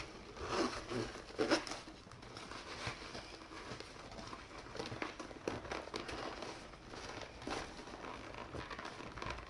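Fabric drone shoulder bag rustling and gear knocking lightly as chargers are pushed into it by hand: scattered rustles and small knocks, the loudest about a second and a half in.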